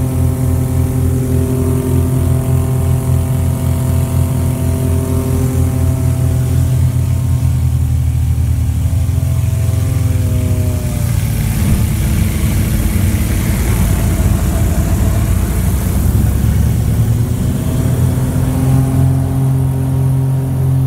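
Small aircraft's engine drone heard inside the cabin, steady and loud, with a regular throbbing beat in the low end. A little past the middle its pitch shifts and the drone turns rougher for several seconds, then settles back to a steady hum near the end.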